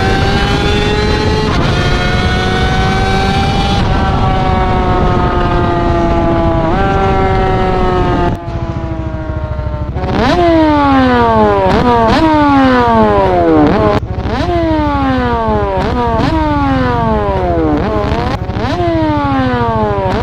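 Engine pulling up through the gears, its pitch climbing and dropping back at each shift. From about halfway it is revved in quick throttle blips roughly once a second, each jumping up and falling away, and it cuts off suddenly at the end.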